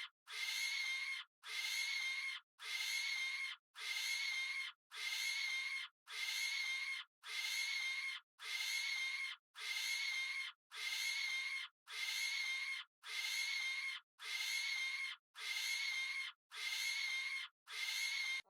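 An animal's harsh, shrill call repeated evenly about once a second, each call just under a second long and cut off cleanly, with silence between.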